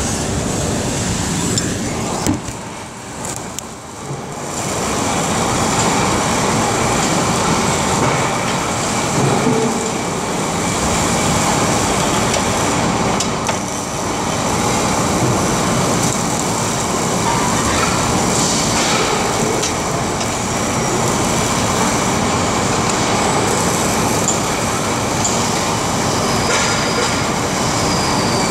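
Steady, loud din of factory machinery, an even rushing noise that briefly drops a few seconds in.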